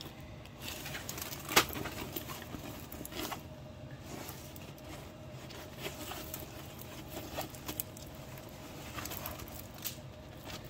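Faint rustling and scattered clicks of a plastic-coated diamond painting canvas being handled and shifted, with one sharper crackle about a second and a half in.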